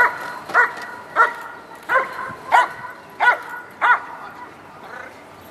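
A police Czech Shepherd barks repeatedly at a decoy hidden in a wire cage, alerting on the hidden person. About seven sharp barks come at a steady pace, roughly one every two-thirds of a second, and stop about four seconds in.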